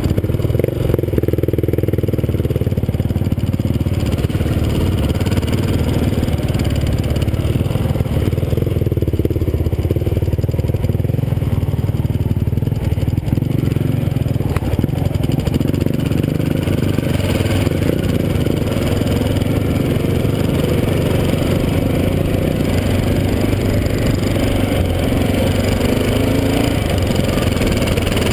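Engine of a 650 cc single-cylinder four-stroke dual-sport motorcycle running while riding, its pitch rising and falling with the throttle.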